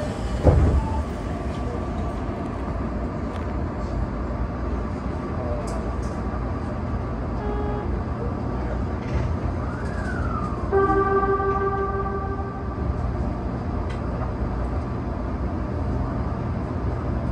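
Tokyo Metro 18000 series train's horn sounding once as a steady pitched tone for about two seconds, about eleven seconds in, warning as the train departs the station. Before it, a low steady rumble from the train at standstill and a single thump near the start.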